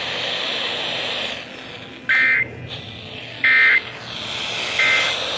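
Emergency Alert System end-of-message data tones: three short, shrill digital warbles about 1.3 seconds apart, over a steady radio hiss. They mark the end of the severe thunderstorm warning broadcast.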